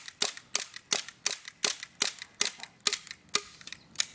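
KJW M9 gas blowback airsoft pistol firing rapid semi-automatic shots, each a sharp crack with the slide cycling, about four a second. The shots stop near the end as the magazine is emptied.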